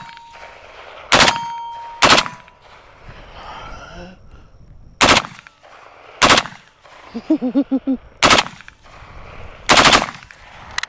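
HK G36C 5.56 mm carbine fired shot by shot at an uneven pace, about seven sharp gunshots spread over ten seconds, the last one longer or a quick double. A short steady ringing tone follows the first two shots.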